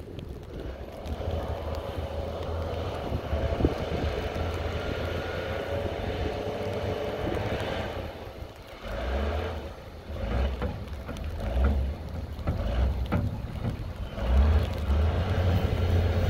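John Deere wheel loader's diesel engine working as it pushes snow with its bucket and lifts it onto a pile, the engine swelling several times in the second half as it takes load, with a few short knocks.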